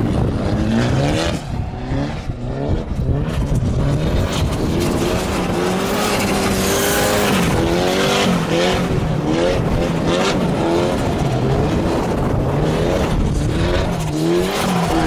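Nissan SR20-swapped BMW E36's four-cylinder engine revving up and down over and over while the car spins donuts, its tyres sliding through loose dirt.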